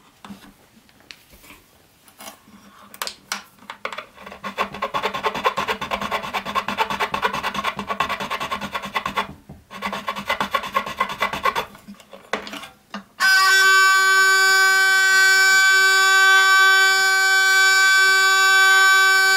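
A triangle file rasping in quick strokes in a string notch of a hurdy-gurdy's wooden bridge, with a short pause partway, deepening the notch to lower the string onto the wheel. About 13 seconds in, the wheel is cranked and the string sounds one steady, bright note, the loudest sound here: the string now touches the wheel.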